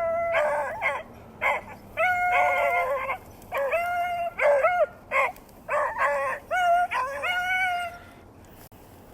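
Beagles baying, the sound of hounds running a rabbit: long drawn-out bawls mixed with shorter barks, the calls stopping about eight seconds in.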